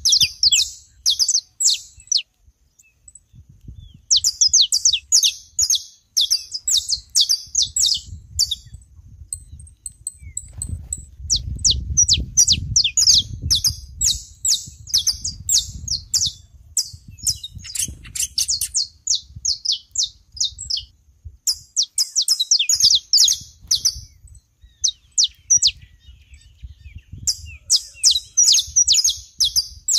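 Saffron finches (canário-da-terra) singing and chirping: rapid runs of high, sharp notes in phrases a few seconds long, broken by short pauses.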